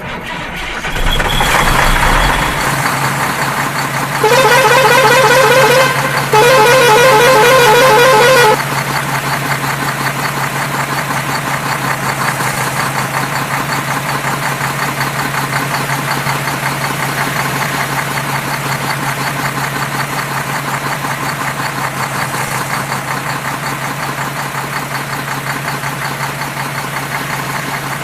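A vehicle horn sounds twice, two long warbling blasts about four seconds in, after an engine starts up; then a steady engine running sound carries on.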